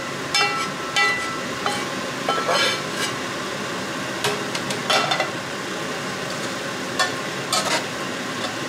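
Metal slotted spatula scraping and clinking against a frying pan and a large pasta pot as garlic and oil are scraped onto spaghetti and the pasta is tossed: about eight sharp clinks and knocks, some briefly ringing, over a steady sizzle of oil.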